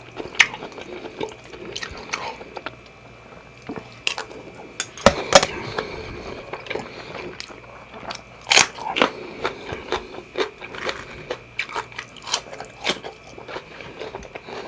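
Close-up eating sounds: chewing and biting into seafood fried rice, with many sharp clicks and taps spread through.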